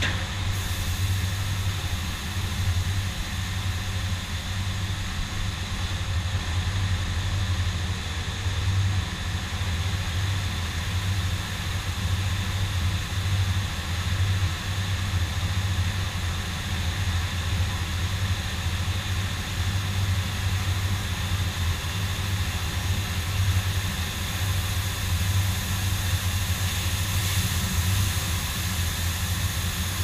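John Deere S670i combine harvester running steadily: a deep, even engine drone with faint steady whines above it.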